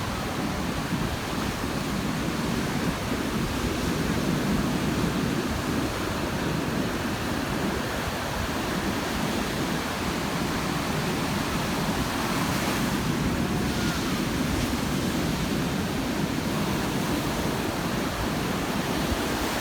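Ocean surf breaking and washing up the beach, a steady rushing noise, with wind gusting on the microphone.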